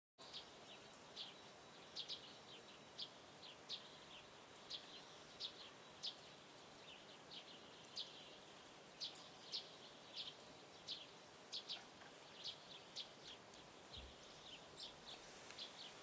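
Faint, irregular high chirps of small birds, a few each second, over a steady background hiss.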